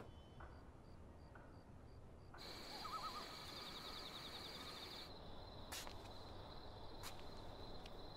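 Quiet night ambience of insects chirring steadily, growing fuller about two and a half seconds in, with a short wavering bird call just after.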